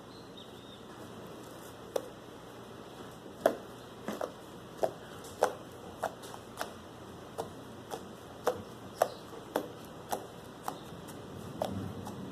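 Slime being played with by hand, trapped air popping in a string of short, sharp clicks, roughly two a second, starting about two seconds in.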